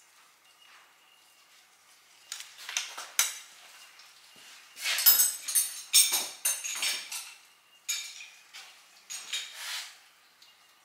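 Hand tools and small metal engine parts clinking and clattering as they are handled: a few sharp clinks about two seconds in, a busier, louder run of clinks in the middle, and a few more near the end.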